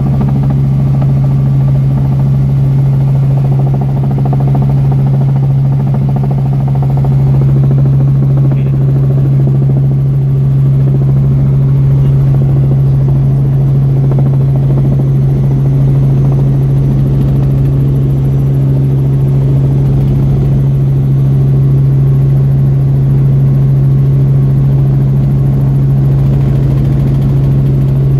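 Helicopter rotor and engine noise heard from inside the cabin: a loud, steady drone with a strong low hum, as the helicopter comes in low and slow to land.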